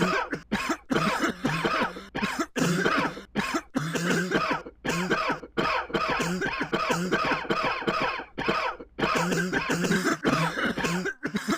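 Repeated coughing: one cough after another in quick succession, broken by several sudden short gaps.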